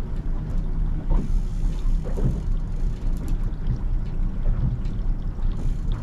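Fishing boat's engine running steadily while trolling, a low continuous drone.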